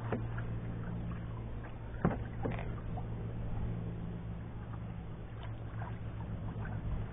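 Water lapping against the hull of an Old Town Discovery 133 canoe being paddled across a lake, over a steady low rumble. A couple of light knocks come about two seconds in.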